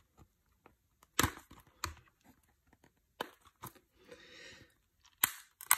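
Plastic shrink wrap on a 4K UHD Blu-ray case being picked at and ripped off by hand, with no tear strip to pull. It goes as a series of sharp crackles and short rips with a softer crinkle in between, the loudest about a second in and near the end.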